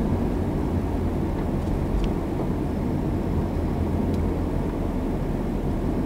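Steady low rumble of a car's engine and tyres on the road, heard from inside the cabin while driving along a street.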